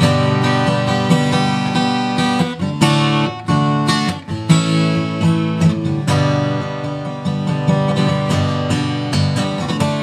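Music with acoustic guitar strumming chords in a steady rhythm.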